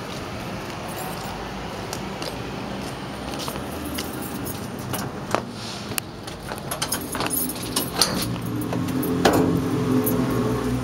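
Keys jangling and metal clicking as the lock of a sheet-metal door is worked and the door is pulled open. A low steady hum joins about seven seconds in.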